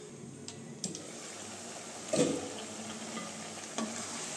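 Gajar ka halwa (grated carrots cooking down with sugar and khoya) sizzling in a kadhai, with three short knocks of cookware about one, two and almost four seconds in.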